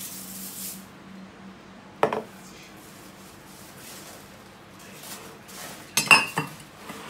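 Cornflakes tipped from a bowl rustle briefly into a glass mixing bowl, then a spatula stirs them into thick cookie dough, with a sharp knock about two seconds in. Near the end, dishes clatter and clink loudly.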